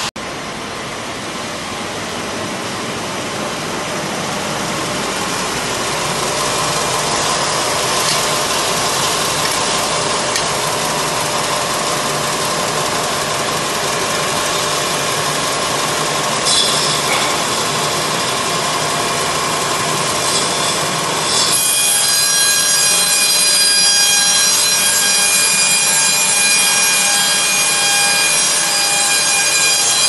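Serra Alpina KE 90 band sawmill, driven by an 18.5 kW electric motor, cutting through a log with a steady sawing noise. A bit past two-thirds of the way the sound changes abruptly to a steady whine of several high tones over a lighter sawing noise.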